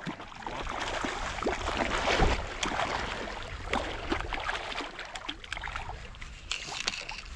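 Water splashing and sloshing as a hooked trout thrashes at the surface while it is drawn in to the landing net, in irregular small splashes with a louder one about two seconds in.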